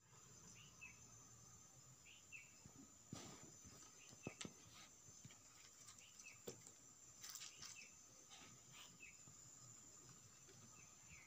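Near silence: a faint steady high-pitched hum with short chirps every second or two, and a few soft clicks and rustles of hands picking up a spring onion and taking rice from a metal plate.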